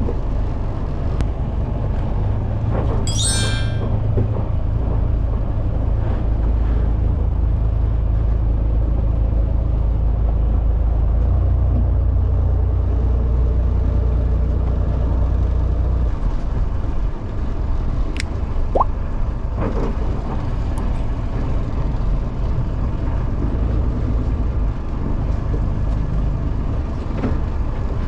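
Fishing boat's engine running steadily with a low rumble that eases about two-thirds of the way through. There is a brief rattle about three seconds in.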